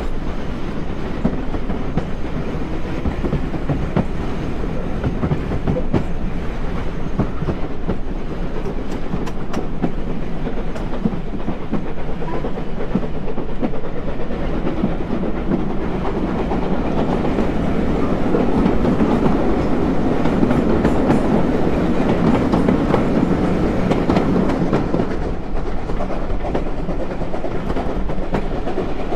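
Steam-hauled passenger train heard from on board a carriage running along the line: a steady rumble with wheels clacking over the rail joints, growing louder for a stretch in the middle.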